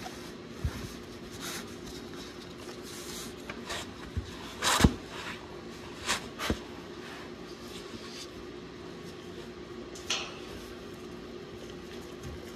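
Scattered knocks and light clatters from gloved hands handling a Westwood F100-10 spin-on heating-oil filter canister and laying absorbent pads under it. The loudest knock comes about five seconds in, over a steady low hum.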